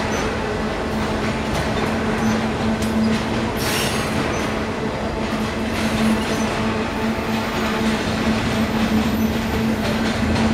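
Intermodal freight train's double-stack well cars rolling past at close range: a steady rumble of steel wheels on rail with faint clicks of the wheels over the rail joints and a steady low tone running through it.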